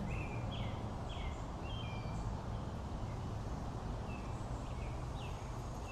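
Birds chirping in short, high notes, one every half second or so, over a steady background hiss.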